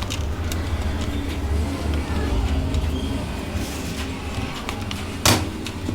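Steady low rumble of road traffic in the background, with faint plastic handling clicks and one sharp click about five seconds in as a plastic smartphone back cover is pressed into place.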